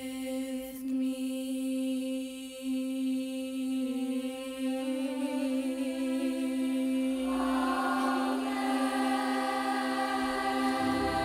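Children's choir singing one long held note. More voices join about seven seconds in, and low accompaniment comes in near the end.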